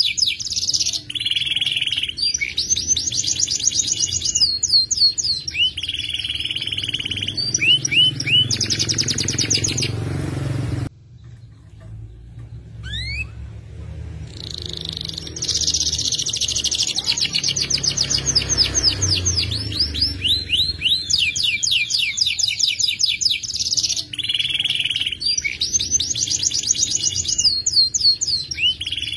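F2 YS canary singing long, rapid rolling trills in a sharp, high voice, phrase after phrase. It breaks off for about three seconds near the middle, then resumes.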